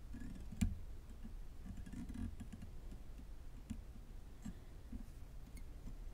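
Faint handling sounds of fly tying at a vise, with thread and feathers being worked onto a tiny hook. There is one sharp click about half a second in, then a few softer ticks.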